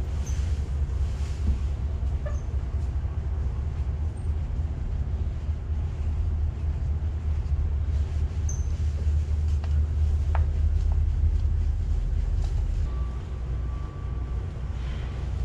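Steady low rumble running throughout, with a few light clicks and a faint thin tone near the end.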